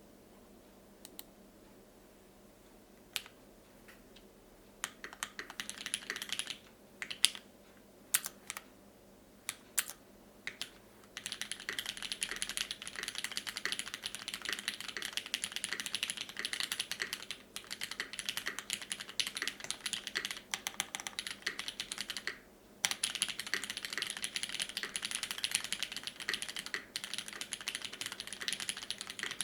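Mechanical keyboard with lubed, filmed retooled Cherry MX Black linear switches on a brass plate and GMK keycaps being typed on. Scattered single keystrokes come first, then from about ten seconds in it goes to fast, continuous typing, broken by one brief pause about three-quarters of the way through.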